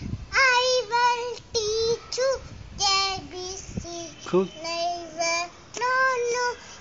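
A young child singing a kindergarten rhyme alone, in short held notes strung into phrases with brief breaths between them.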